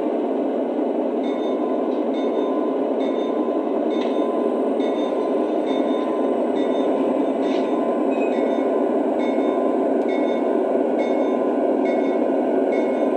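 Lionel SD70ACE O-gauge model locomotive's onboard sound system playing a diesel engine idling, a steady rumble through the model's small speaker, with a faint high ring repeating about every two-thirds of a second.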